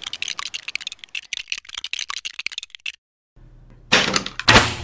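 Rapid, irregular ratcheting clicks for about three seconds as a toy cannon is readied. After a brief silence comes a sudden noisy burst with a sharp thump near the end, the cannon being fired.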